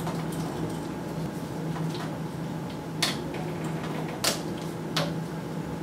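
Plastic cable carrier (drag chain) links being snapped shut by hand: sharp plastic clicks about three, four and five seconds in, over a low steady hum.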